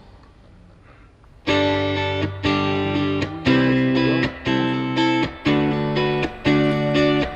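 Background guitar music: quiet for the first second and a half, then chords played in a steady rhythm, about one a second with short breaks between them.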